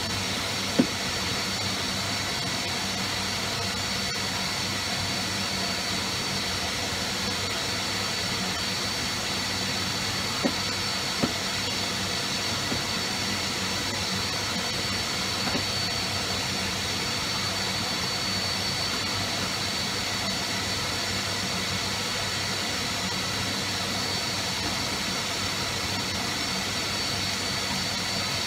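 Vacuum cleaner running steadily, a rushing hiss with a steady high whine, as its hose sucks along the walls. A few light knocks of the nozzle, about a second in and twice around ten seconds in.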